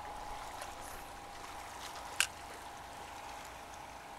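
Faint water lapping and washing against the dike's rocks, over a steady faint hum, with a single sharp click about two seconds in.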